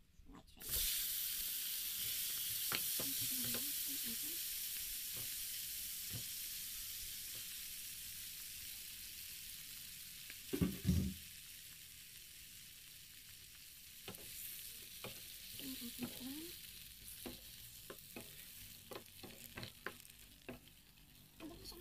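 Whole shrimp dropped into hot oil in a frying pan, the sizzle starting suddenly about half a second in and slowly dying down. A couple of loud thumps near the middle, then short clicks and scrapes as the shrimp are stirred and turned.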